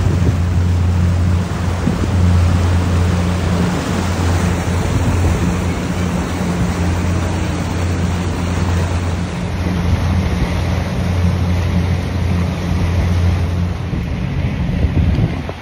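Motorboat engine running with a steady low drone, under a continuous rush of wind and water.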